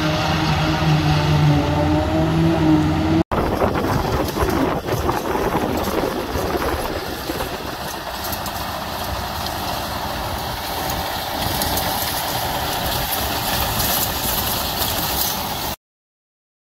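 Background music for about three seconds. Then a sudden cut to a John Deere tractor running steadily as it pulls a Claas rotary rake through cut grass, engine and machinery noise together. The sound cuts off abruptly near the end.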